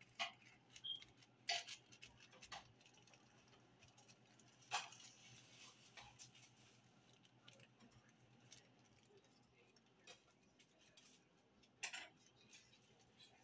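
Quiet handling sounds of tamales being wrapped: a handful of short crinkles and taps as aluminium foil and banana leaves are folded on the counter, with quiet room tone between them.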